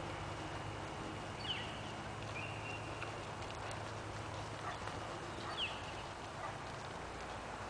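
Soft hoofbeats of a horse trotting on arena sand under a steady outdoor background hiss. Two brief high chirps stand out, about one and a half and five and a half seconds in.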